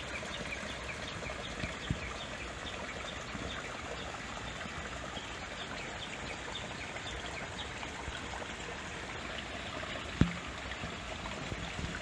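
Steady rush of running water with many faint, short chirps over it, and one sharp knock about ten seconds in.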